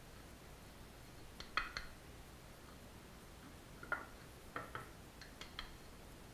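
Light knocks and clicks of two hard casting-mould halves being handled and set down on a table, in a few small clusters: a couple about a second and a half in, then several more between about four and five and a half seconds in.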